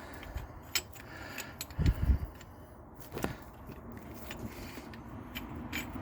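Scattered light metal clicks and scrapes of a brake caliper wind-back tool being fitted against a rear caliper piston, with a couple of dull thumps about two seconds in and a sharper click about three seconds in.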